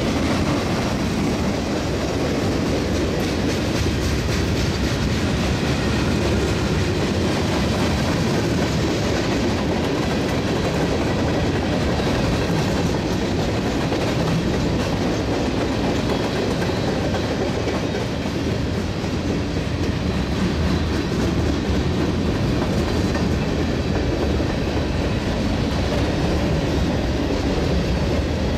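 Freight cars of a CSX mixed freight train rolling past: boxcars, a bulkhead flatcar, tank cars and covered hoppers. Their steel wheels clatter and rumble steadily over the rails, with no change in pace.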